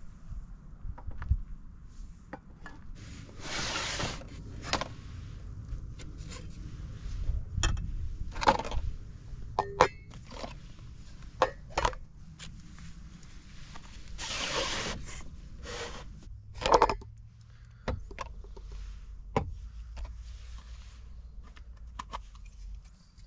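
Camping and coffee gear being handled at an open car tailgate: scattered clinks and knocks of small metal and plastic items set down. There are two longer scraping rustles, about four and fifteen seconds in, over a steady low rumble.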